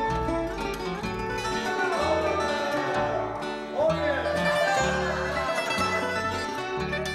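Background music led by plucked string instruments, with a bass line moving under them.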